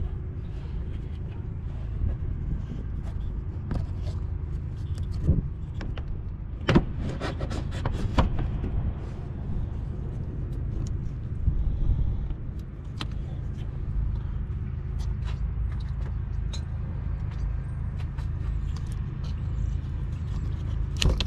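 Scattered clicks and clinks of parts and hand tools being handled under the hood, with a quick run of sharp clicks about seven to eight seconds in, over a steady low rumble.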